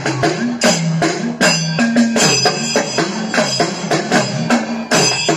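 Edakka, the Kerala hourglass drum, struck rapidly with a stick in a thayambaka rhythm, its pitch sliding up and down as the player squeezes the lacing, with other percussion keeping time.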